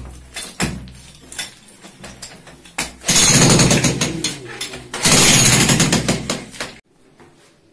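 Electric demolition hammer chiselling out a tiled floor in two loud runs of rapid hammering, the first about three seconds in and the second cutting off abruptly near the end. Before it, scattered knocks and clatter of broken tile rubble being moved.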